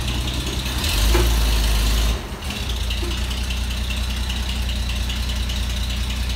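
1936 Chevrolet truck's straight-six engine running. It grows louder for about a second, drops back sharply, then settles into a steady idle with a light rapid ticking.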